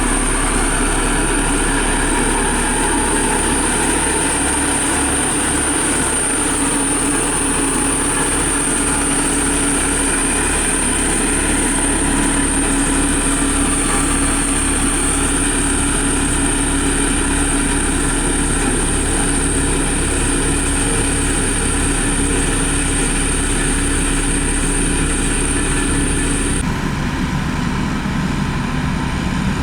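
Heavy road-construction machine's engine running steadily under a constant high-pitched whine, with a low regular pulsing underneath. Near the end the whine cuts off abruptly and the engine sound changes.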